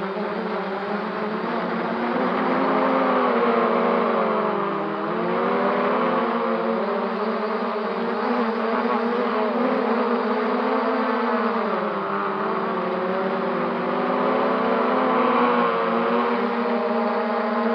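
MJX Bugs 3 quadcopter's motors and propellers whining steadily. The pitch dips and climbs back as the throttle is eased and opened, about five seconds in and again near twelve seconds.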